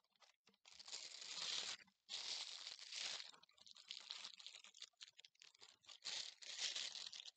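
Clear plastic piping bag crinkling and rustling as it is handled, in four long stretches, while a 102 decorating tip is fitted into it.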